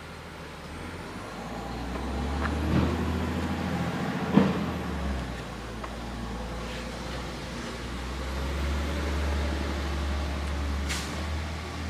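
Garbage truck's diesel engine running some way off, a low rumble that swells and eases, with a sharp thump about four seconds in.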